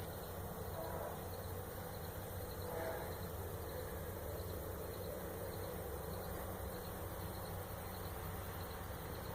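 Crickets chirping in a steady pulsing rhythm over a faint, even low drone. The drone is the unexplained sound the residents take for a circling aircraft.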